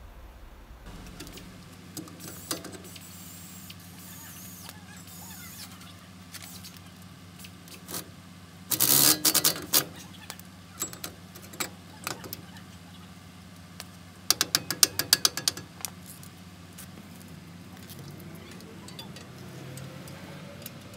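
Steel drum-brake parts being handled and fitted on a heavy truck's wheel end, metal on metal. There is a burst of loud clanking about nine seconds in and a quick run of clinks around fourteen to fifteen seconds, over a steady low hum.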